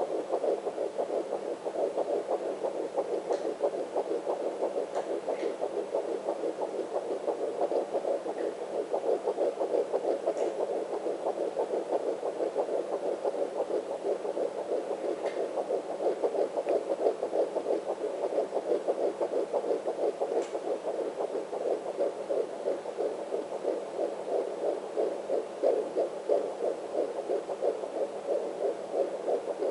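Fetal heartbeat picked up by a handheld fetal Doppler and played through its speaker: a fast, even whooshing pulse.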